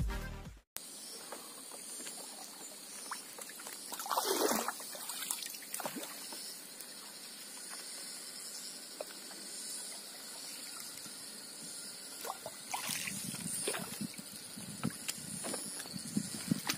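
Outdoor waterside ambience with insects chirping steadily at a high pitch, a louder swish about four seconds in, and scattered small knocks and handling noises.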